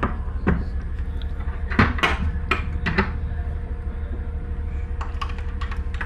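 A cabin door being handled: a handful of sharp clicks and knocks in the first three seconds, then a few faint ticks, over a steady low hum.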